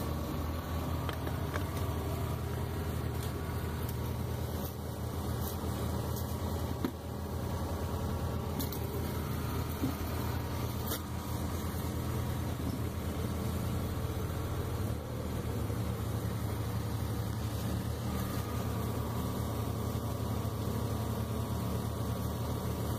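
Steady low machine hum like an engine idling, with a few light clicks and knocks from handling the equipment.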